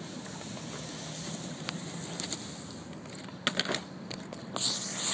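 Skateboard wheels rolling on wet concrete, a steady grainy rumble, with a few sharp clacks from the board about three and a half seconds in and a brief hiss near the end.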